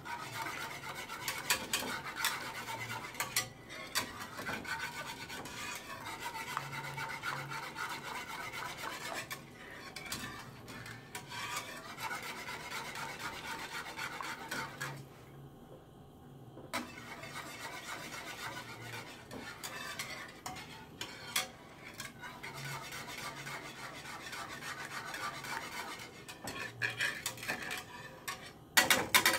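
A wire whisk stirring creamy soup in a square nonstick pan, its metal wires scraping and rasping against the pan's bottom and sides in long continuous stretches. There is a short pause about fifteen seconds in, and a few sharper clinks against the pan near the end.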